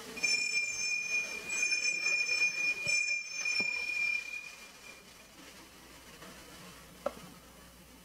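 Altar bells rung three times at the elevation of the host during the consecration, a high bright ringing that swells with each ring and then dies away.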